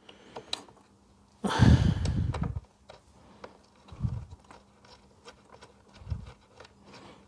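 Hand tools at work undoing the fasteners of a quarter-glass bracket. A longer stretch of metallic working noise about a second and a half in is followed by a couple of dull knocks and small clicks.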